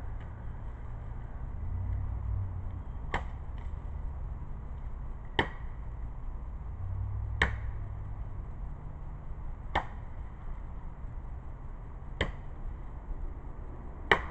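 Katana blade chopping into a tree trunk: six sharp strikes about two seconds apart, the first about three seconds in and the loudest near the end.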